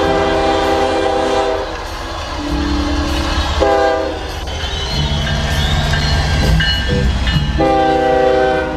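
Norfolk Southern diesel freight locomotive's air horn sounding at a level crossing: a long blast, a short one a little after three and a half seconds in, and another long blast near the end. Between the blasts the diesel engines and rolling train make a steady low rumble.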